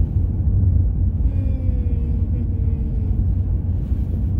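Steady low rumble of a car driving along a paved road, engine and tyre noise heard from inside the cabin.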